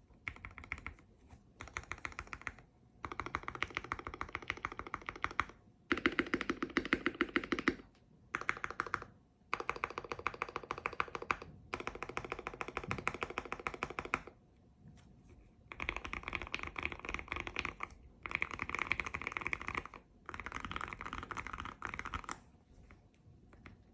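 Typing on a Keychron Q1 mechanical keyboard with hand-lubed Aqua King V3 linear switches on a brass plate, tape-modded and foam-dampened: fast runs of keystrokes in bursts of a few seconds, with short pauses between them.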